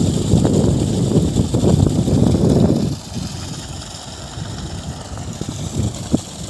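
Water gushing from the 63 mm outlet pipe of a borewell pump and splashing onto muddy ground, a heavy steady rushing flow. It drops to a quieter wash of water about three seconds in.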